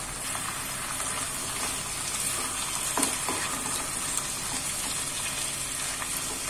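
Potato and kundru (ivy gourd) slices sizzling gently in oil in a non-stick kadai while a spatula stirs them, scraping the pan a few times around the middle. The vegetables are nearly cooked after three minutes covered on a low flame.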